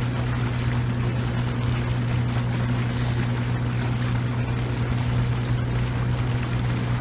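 Boat engine running at a steady speed with an even low hum, over the rush and splash of water along the hull as the boat moves across the reservoir.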